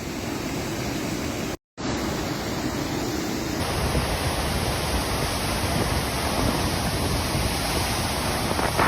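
Floodwater rushing steadily, a continuous noisy wash of water, broken by a brief silent gap about a second and a half in.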